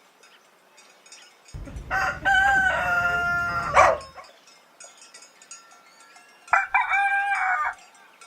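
Rooster crowing twice: a long crow about a second and a half in, then a shorter one near the end.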